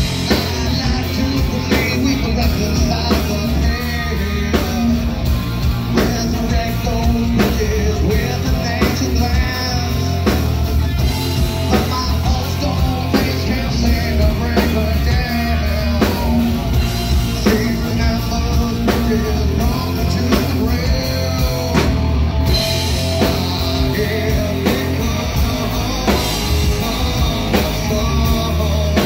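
Live rock band playing: a man singing lead over electric guitar, bass guitar and a drum kit with a steady beat.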